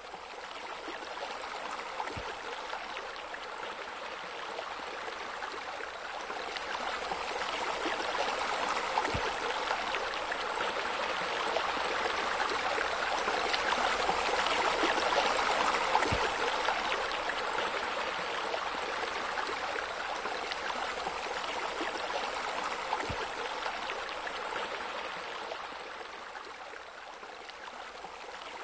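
Steady rush of flowing water, like a stream or spilling water feature, growing louder toward the middle and easing off near the end.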